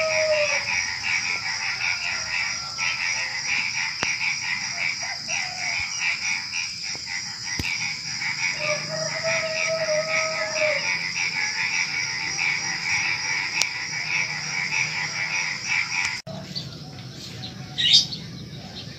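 Dense pre-dawn chorus of frogs calling in rapid pulses over a steady high trill of crickets, with a rooster crowing twice, once at the start and once about nine seconds in. About sixteen seconds in the chorus cuts off abruptly, and a bird chirps near the end.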